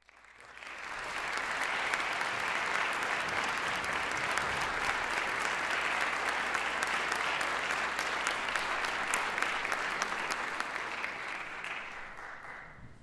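Audience applauding. The clapping builds over the first second, holds steady, and dies away near the end.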